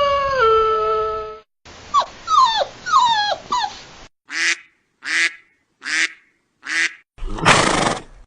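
Dog vocal sounds spliced together in quick succession. A held howl that drops in pitch ends about a second in, followed by several falling whimpering yelps, four short evenly spaced barks, and a brief rough noisy burst near the end.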